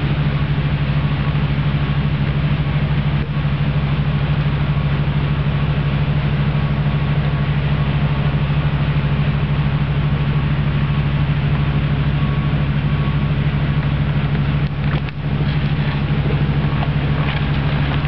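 Steady, unchanging low drone of an engine running at idle, with a brief dip and a few clicks about fifteen seconds in.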